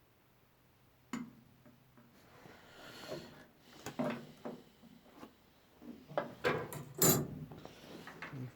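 Objects being handled in a workshop: a first sharp click about a second in, then irregular knocks, clicks and rubbing, busiest in the second half.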